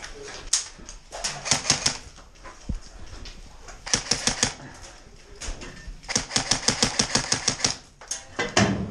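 Airsoft guns firing on full auto: three bursts of rapid clicking shots, the last and longest lasting over a second and a half.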